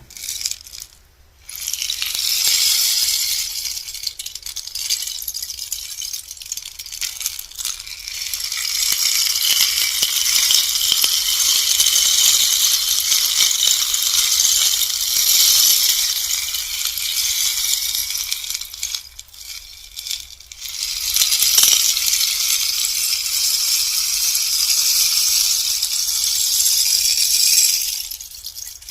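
Bamboo rainstick turned over, its pebbles trickling down inside in a long, hissing, rain-like patter. The flow dies away and starts again about a second in, around twenty seconds in, and near the end as the stick is flipped.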